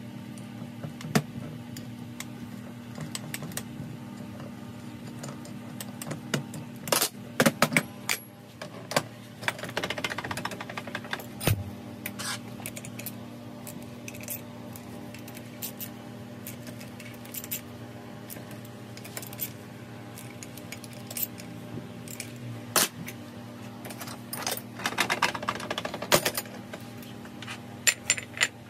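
Metal starter-motor housing parts clinking and knocking against each other and the workbench as they are handled, with a rag rubbing over them about ten seconds in and again near the end. A steady low hum runs underneath.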